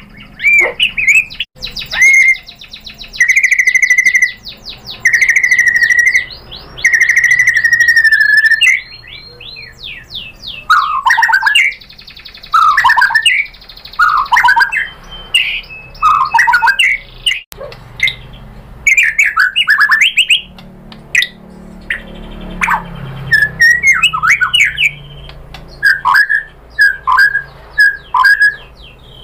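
White-rumped shama (murai batu) singing a loud, varied song. It opens with long clear whistles, moves to a series of downward-sliding whistles about halfway through, and ends with quick short notes.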